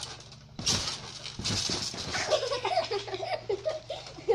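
A child giggling in a quick run of short, repeated bursts, starting about two seconds in, after a couple of brief rustling thumps.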